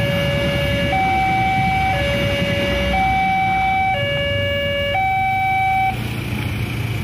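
Electronic level-crossing warning siren sounding a two-tone high–low alternation, about one tone per second, warning that a train is crossing. It cuts off suddenly about six seconds in as the barriers start to lift after the train has passed.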